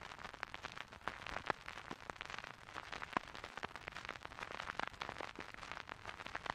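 Typing on a Neo80 mechanical keyboard with HMX Canglan V2 linear switches, a POM plate and Monokei keycaps: a quiet, irregular stream of quick keystroke clacks, several a second, some louder than others.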